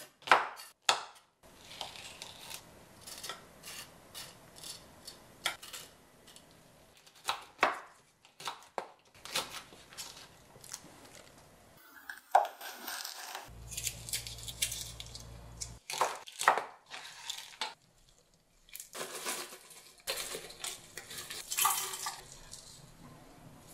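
Kitchen knife chopping chili peppers on a wooden cutting board: irregular sharp knocks of the blade against the board, in several short runs.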